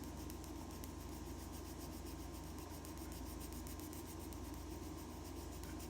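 Faint, steady scratching of a drawing tool on paper as the eye pupils are drawn.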